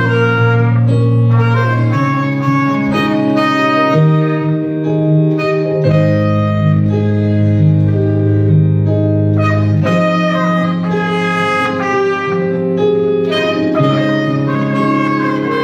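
A trumpet and a clarinet playing a melody in long held notes over electronic keyboard accompaniment with sustained bass notes.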